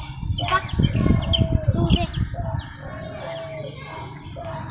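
Caged birds calling: a repeated mid-pitched call about once a second, with short high chirps between. A low rumbling noise runs under the calls during the first two seconds.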